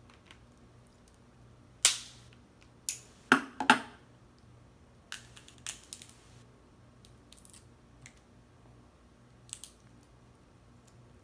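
Cooked crab leg shells cracking and snapping as they are broken open by hand. A few loud sharp cracks come about two to four seconds in, followed by quieter clicks and crunches.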